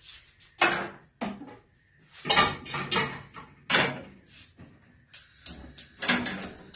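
Kitchen clatter: a handful of separate knocks of pots and dishes, then a quicker run of short sharp clicks near the end.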